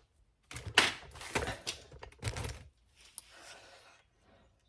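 Metal clacking and scraping as a front brake pad with its metal clip is handled and pushed into the caliper bracket. There are a few sharp clacks over the first two and a half seconds, then fainter rattles.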